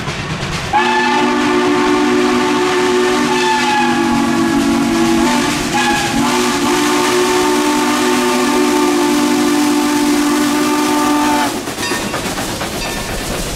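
Chime steam whistle of a 2-8-2 Mikado steam locomotive, No. 30, sounding a chord: a long blast starting about a second in, a brief break, then a second long blast that cuts off about two seconds before the end. After it, the train rumbles past.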